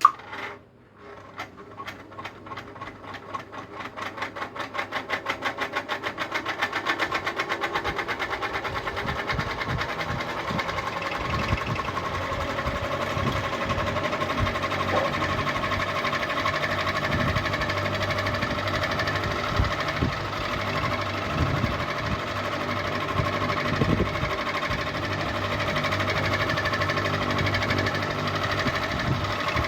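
Ceiling fan switched on with a sharp click, then spinning up: an even, rhythmic beat that quickens and grows louder over the first ten seconds or so, then settles into a steady mechanical whirr with a hum.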